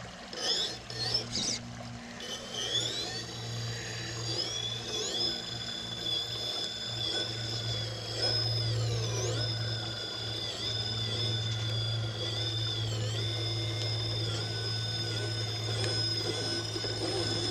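An RC rock crawler's brushless motor and drivetrain whining as the truck creeps up rocks. The high whine rises and dips with the throttle, over a steady low hum.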